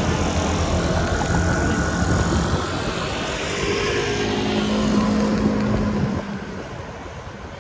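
Street traffic: scooter and car engines running and passing close by, with a low engine hum swelling around the middle. The traffic noise eases off a little near the end.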